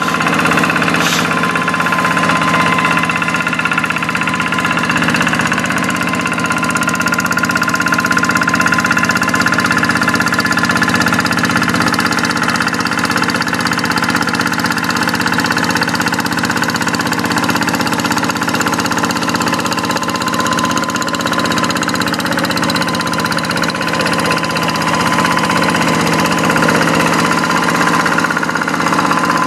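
Kubota single-cylinder diesel engine of a Quick two-wheel hand tractor running steadily.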